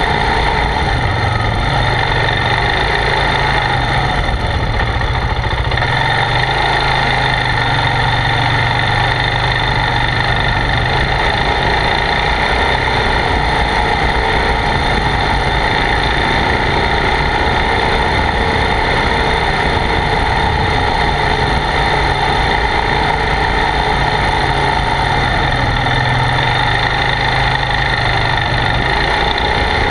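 ATV engine running steadily as the quad rides over a sandy dirt trail, its low engine note shifting a few times with the throttle.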